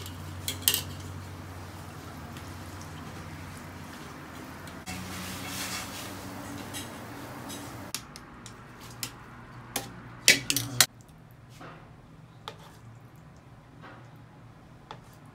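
Kitchen cookware clatter: a wire-mesh strainer and chopsticks clink against a stainless-steel pot of boiling water over a steady hiss and hum, which drops away about halfway through. Then come scattered sharp clanks of utensils on pans and a plate, loudest in a quick cluster about two-thirds of the way in.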